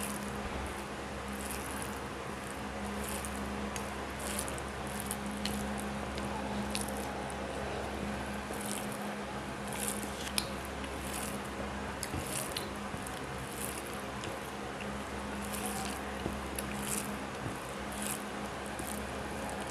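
Eating by hand: fingers squishing boiled rice and boiled Malabar spinach together on a plate, with chewing, in short irregular wet smacks over a steady low hum.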